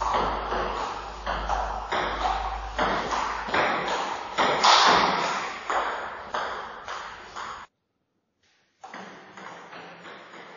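Celluloid-type table tennis ball clicking off paddles and the table in a rally, a sharp tick about every half second with a short echo after each. The sound cuts out for about a second near the end, then the ticking resumes more faintly.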